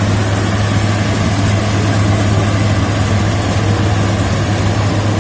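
Rice combine harvester's engine running steadily, with a strong, constant low hum.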